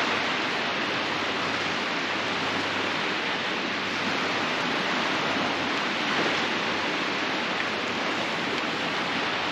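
Sea surf washing onto the shore: a steady, even rush of breaking waves.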